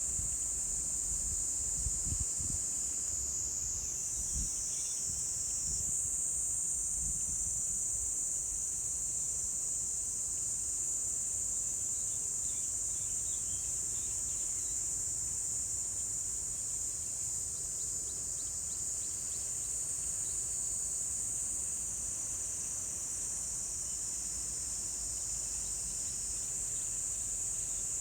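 Insects singing in chorus, a continuous high-pitched shrill trill that holds steady throughout. Some low rumbling comes through in the first several seconds.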